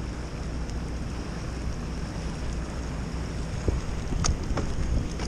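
Wind rumbling on the microphone over the rush of fast, churning river current around a kayak, with a couple of light knocks about four seconds in.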